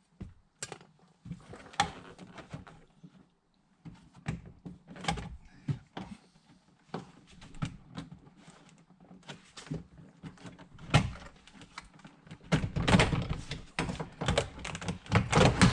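Scattered clicks, knocks and scraping of plastic door-panel trim being pried at with a screwdriver, with a denser, louder run of knocks near the end.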